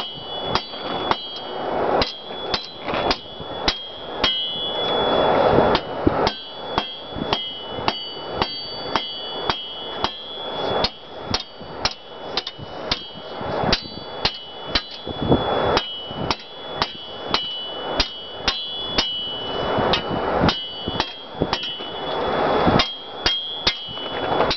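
Blacksmith's hand hammer striking hot mild steel on an anvil, drawing the bar out into a sword blank. Steady blows come about two to three a second, each followed by a bright ring from the anvil.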